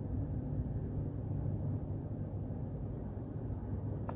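Steady low rumble of background noise with no speech.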